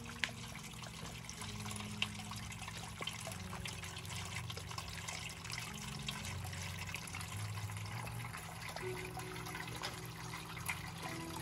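Water trickling and splashing steadily, with many small droplet splashes in it, as from a small fountain or running-water feature. Faint low sustained notes change pitch underneath.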